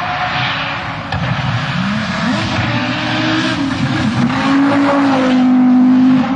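Loud car engine revving: its pitch climbs about two seconds in, then holds high and steady, loudest near the end.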